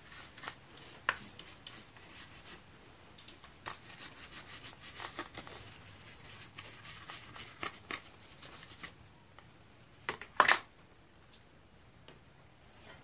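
A shop rag rubbing and scrubbing grime off a lawn mower engine around the carburetor, with small scrapes and clicks throughout. A sharp knock comes about ten and a half seconds in.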